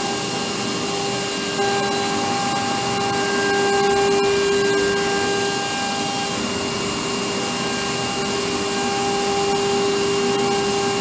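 CNC panel router milling film-faced plywood: a steady spindle whine over the rushing of the dust extraction, a little louder about four seconds in.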